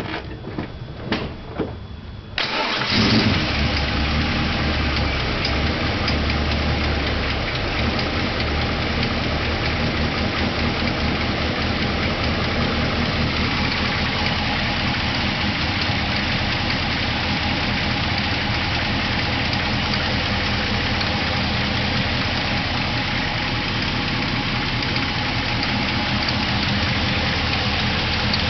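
A 416 stroker LS3 V8 fires up about two seconds in, after a few sharp clicks, then runs steadily. It is an engine whose owner hears a tick under throttle and suspects a bad lifter.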